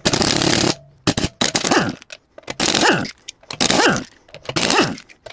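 Pneumatic impact wrench zipping a car wheel's lug nuts loose in a series of short bursts, the first the longest. In the later bursts the air motor's whine rises and falls as the trigger is pulled and released.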